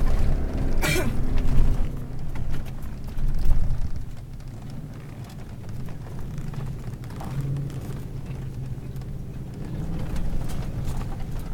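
Four-wheel-drive SUV driving over sand dunes, heard from inside the cabin: engine running with a heavy rumble, loudest over the first few seconds with a sharp knock about a second in, then easing to a steadier, quieter hum.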